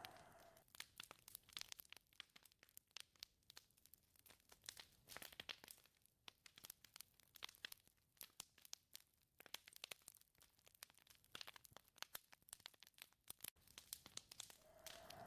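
Faint, irregular crackling: many sharp clicks and pops. About a second before the end, a whistling gust of wind swells up.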